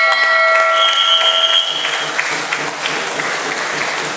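End-of-bout signal: a steady horn tone lasting about a second and a half, overlapped partway by a higher, shriller steady tone. The crowd applauds throughout, and the clapping carries on after the tones stop.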